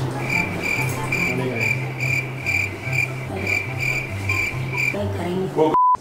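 Cricket chirping, a high chirp repeating evenly about twice a second, used as a comic awkward-silence sound effect. Near the end the sound cuts out under a short censor bleep.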